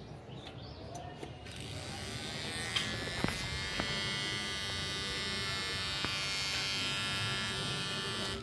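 Repaired cordless hair trimmer running: its motor and blades start buzzing about a second and a half in, rise in pitch over the next two seconds, then run steadily, with a few light clicks. The steady run shows the trimmer working properly again after the repair.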